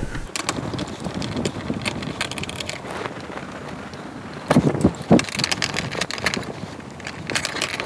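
Phillips screws being turned out of a metal TV-mount bracket in drywall with a hand screwdriver: a run of small scraping clicks, with a couple of louder metallic knocks about halfway through.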